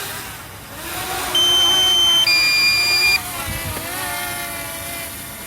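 DJI Mini 2 SE drone's propellers whining as it descends, the pitch wavering as the motors change speed. About a second in, a loud two-tone electronic warning alarm sounds, one pitch held for about a second and then a lower one for about a second, as the drone's battery runs low.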